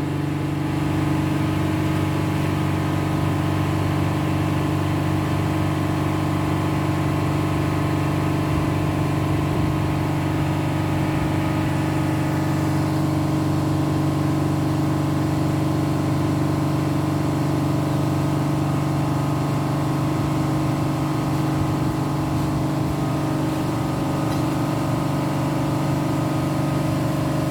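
Ice cube machine rated at 5 tons a day, charged with R404A refrigerant, running on test: a steady, even machine hum with no change in pitch or level.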